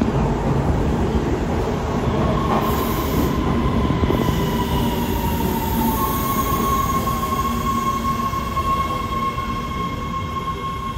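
Breda A650 subway train pulling into a station and slowing: a heavy rumble of wheels on the rails, with a high whine that slides down in pitch and then holds one steady tone from about halfway through.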